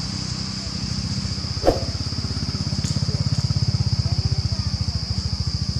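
A small engine running with a fast, even chug that gets louder from about two seconds in, over a steady high-pitched drone, with one sharp click about a second and a half in.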